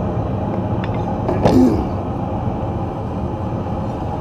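Steady rushing noise of the forge running, with one short metallic scrape of the steel tong blank about a second and a half in.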